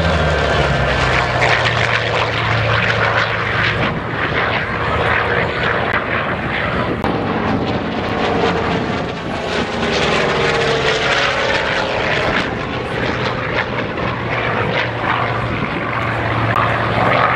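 Radial-engine WWII warbird fighter making a low pass, its piston engine and propeller droning loud and steady. The pitch falls about ten seconds in as it goes by.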